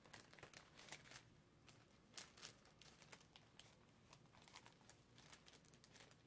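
Faint crinkling and rustling of a paper doll set and its packaging as it is handled, a scatter of soft crackles.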